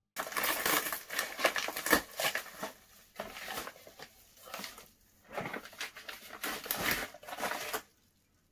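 Paper mailer envelope being torn open and rustled by hands digging inside it: irregular bursts of crinkling and tearing with short pauses between them.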